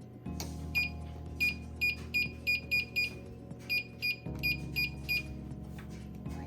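A dozen or so short, identical high electronic beeps in quick, uneven succession, over steady background music.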